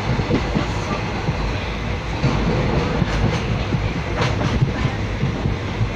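Passenger train running, heard from inside a carriage at an open barred window: a steady rumble of wheels on the track, with a few sharp clacks in the second half.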